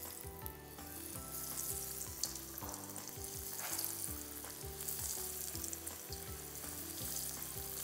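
Breaded chicken fingers sizzling as they fry in hot oil in a pan. The sizzle grows louder after about a second.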